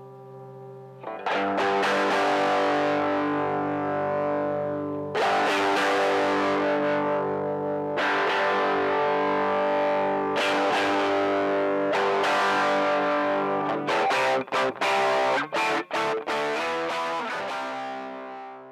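Electric guitar through distortion being played for a tone check. Big chords are struck and left to ring, with new ones about a second in and again every few seconds. A run of short, choppy muted strokes comes later, and a final chord fades out near the end.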